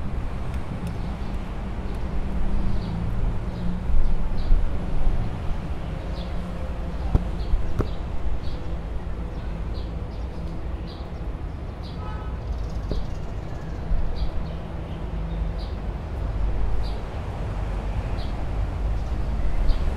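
Street ambience: a steady low rumble of traffic with short high bird chirps repeating throughout, and a brief rapid chatter of ticks about midway.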